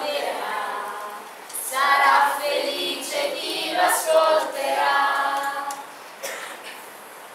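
Voices singing together unaccompanied, a few phrases with held notes; the song ends about six seconds in.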